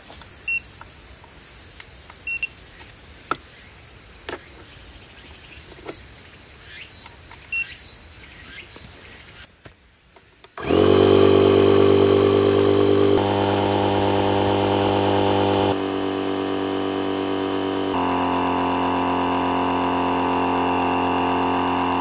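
A few clicks and short beeps while the pump is connected. About halfway through, a Dometic Gale electric air pump switches on, whines up to speed and runs steadily, its tone shifting a few times as it inflates an air tent's beams.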